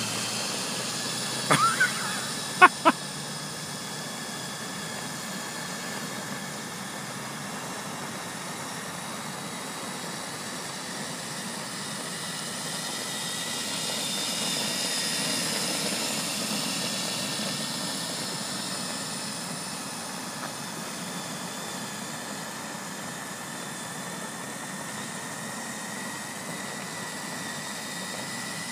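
Steady hum of a vehicle engine with road and traffic noise, swelling a little about halfway through. A few short, sharp sounds about two seconds in.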